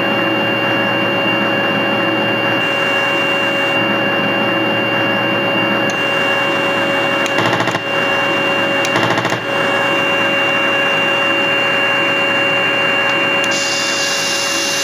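Simulated M1A2 Abrams gas-turbine engine sound from a Heng Long TK6.1 RC tank sound module, played through a home cinema speaker: a steady running whine with two fixed tones. Two short bursts of rapid clicks come a second and a half apart midway, and a rising hiss joins near the end.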